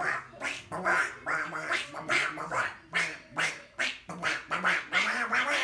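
Voices singing a tune in short, nasal, repeated 'wa' syllables instead of words, about three a second, unaccompanied.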